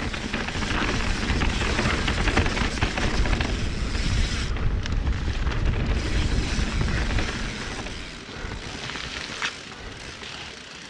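Wind rushing over an action camera's microphone and a mountain bike's tyres rolling fast over a dirt trail, with rattling over bumps. The rush eases about eight seconds in as the bike slows.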